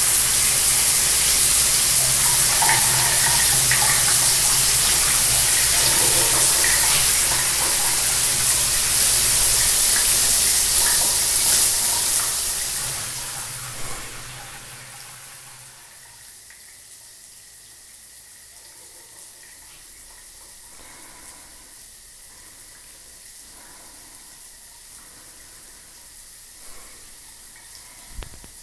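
Water running steadily into a bathtub, a loud even rush with a low hum beneath it. It fades out about 14 seconds in, leaving a quiet background with a faint steady high tone and soft scattered ticks.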